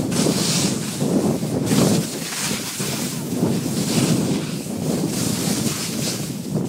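Wind buffeting the microphone of a camera carried down a snow run, with the hiss of skis or a snowboard scraping over the snow rising and falling in repeated surges.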